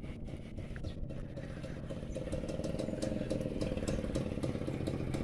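An engine running steadily and slowly growing louder, with some light clicking and rattling over it.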